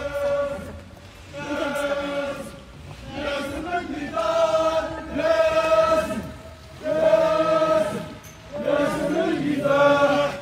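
Crowd of protesters chanting slogans together in unison, in short repeated phrases of a second or two with brief pauses between them.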